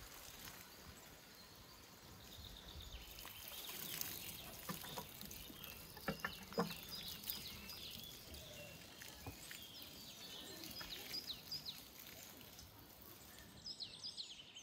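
Birds chirping over a faint steady hiss of open air, with a few short sharp clicks, the loudest a little past six seconds in; the chirps grow busier near the end.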